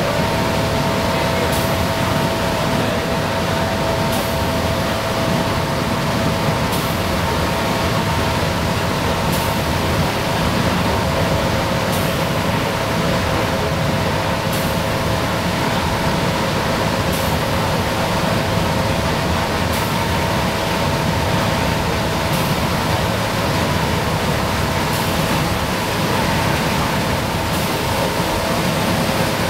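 Inside a 1994 Nova Bus Classic cruising on a wet highway: the Detroit Diesel 6V92TA two-stroke V6 runs steadily with a steady whine, and the tyres hiss on the wet pavement. A light tick comes about every two and a half seconds as the windshield wipers sweep.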